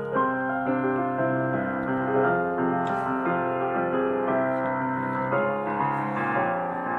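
Soft background piano music with sustained, layered chords.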